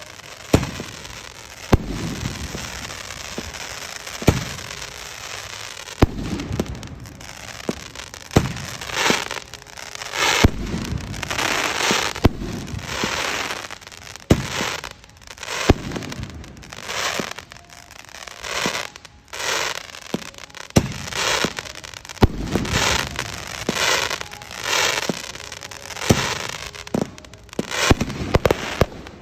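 Professional fireworks display: shells bursting in a run of sharp booms, one every second or two, some followed by about a second of dense noisy spray.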